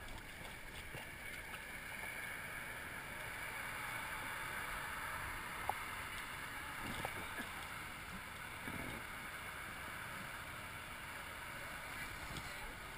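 Water rushing and lapping around a floating inner tube carried along by a lazy-river current: a steady rushing noise with a few small splashes.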